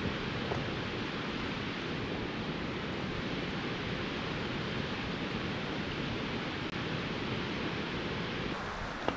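Steady, even rushing of a nearby waterfall.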